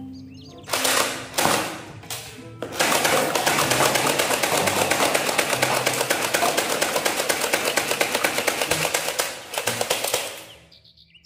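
Battery-powered toy machine-gun blaster firing: two short bursts, then full-auto rapid fire with evenly spaced shots for about eight seconds, stopping shortly before the end.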